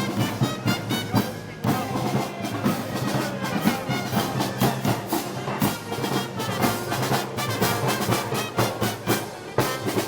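Brass band with drums playing festival music: brass holding sustained chords over steady drum beats.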